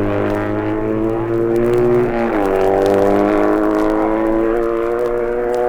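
BMW flat-twin racing motorcycle going by at speed, its engine note held high, dipping sharply about two seconds in and then climbing steadily again.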